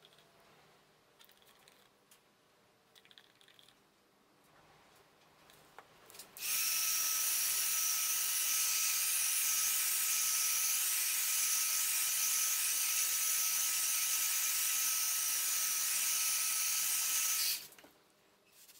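Electric heat gun switched on about six seconds in, its fan running with a steady whine and rush of air for about eleven seconds, blowing across wet resin, then switched off.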